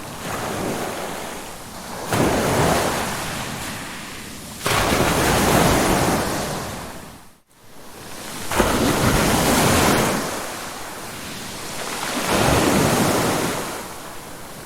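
Ocean surf: waves break and wash in roughly every three to four seconds, each surge coming in suddenly and then fading. About halfway through, the sound drops out almost completely for a moment before the next wave crashes in.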